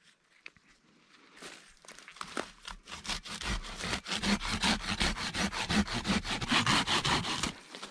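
Serrated blade sawing into a tree trunk by hand, with quick back-and-forth strokes, several a second, starting about a second and a half in and stopping near the end.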